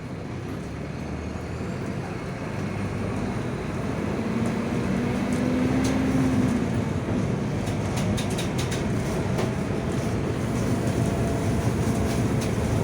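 Mercedes-Benz OF-1722M bus running under way, its engine and drivetrain noise getting louder over the first few seconds. About five seconds in, a whine comes up and fades: the growl of the bus's worn differential. A cluster of light rattles follows about eight seconds in.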